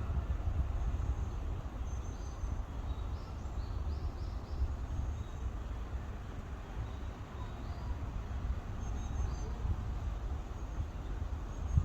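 Wind buffeting the microphone as a steady, uneven low rumble, with short high bird chirps scattered through it.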